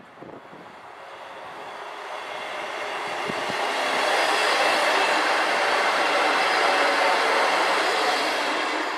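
Northern Class 158 diesel multiple unit passing close by: engine and wheel-on-rail noise builds steadily, is loudest about midway, then eases as the train moves away near the end.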